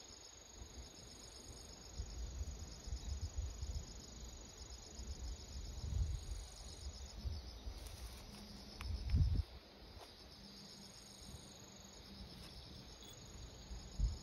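Steady, high-pitched insect chirring of a fine, rapid pulse, like crickets, with a few low rumbles of wind or handling noise on the microphone.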